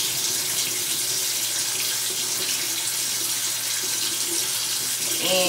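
Bathroom sink tap running steadily into the basin.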